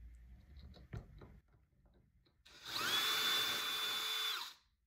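Cordless brushless drill with a diamond bit grinding into a lava rock held under water, running for about two seconds: its whine rises as it spins up, holds steady, then falls away as it stops. A light knock comes about a second before it starts.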